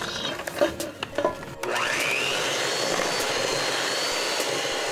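A few light knocks and clinks, then about a second and a half in an electric hand mixer switches on, its motor whining up to speed and then running steadily as the beaters whip creamed butter, sugar and eggs in a stainless steel bowl.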